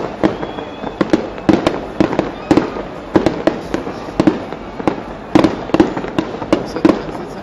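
Fireworks display: an irregular string of sharp bangs and cracks, several a second, throughout.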